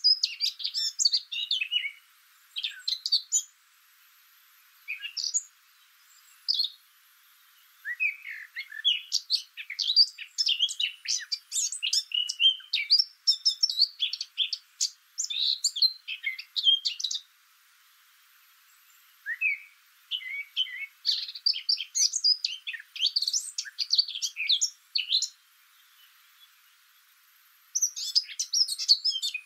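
Small birds chirping and twittering in quick, busy bouts, with pauses of a second or two between them.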